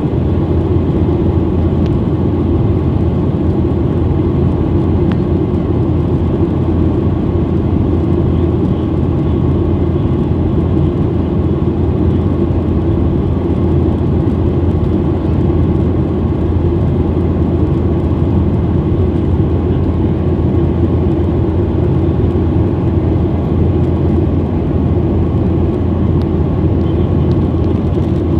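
Steady cabin noise inside a jet airliner in cruise: the even, low-pitched rush of the engines and airflow, with no change throughout.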